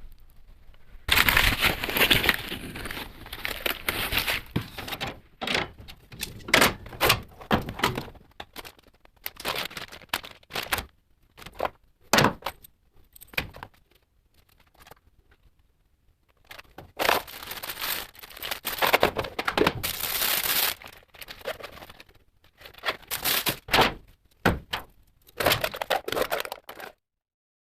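Packaging being handled and opened: irregular bursts of scraping, rustling and sharp knocks with short pauses between them, cutting off abruptly near the end.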